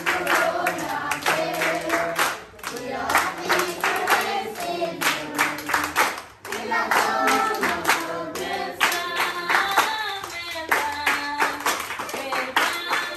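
A group of children singing a song together, clapping their hands in a steady rhythm of about two claps a second.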